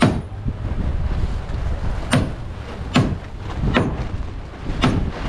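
Hammer blows on a new wooden sheer plank clamped to a wooden schooner's hull, nailing it in place: five sharp knocks about a second apart. Wind rumbles on the microphone throughout.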